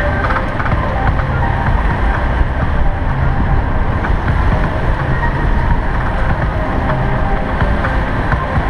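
Wind rumble on the action-camera microphone of a moving bicycle, with music from a portable boombox playing under it.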